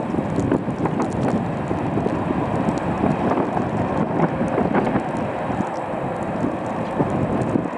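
Boeing 747-400 freighter's four GE CF6-80C2 turbofan engines running, a steady, crackling rumble.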